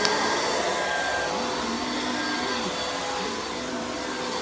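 Upright vacuum cleaner running, a steady motor whine and airflow rush whose pitch rises and dips slightly.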